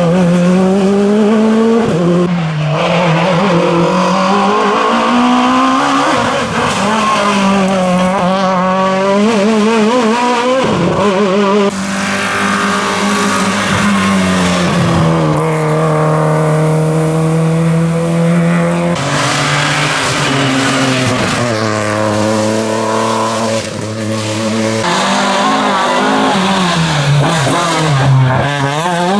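Rally cars on a stage: engines revved hard and lifting off through gear changes, revs sweeping up and down, with tyre squeal. Several cars are heard in turn, one holding a steady engine note for a few seconds around the middle.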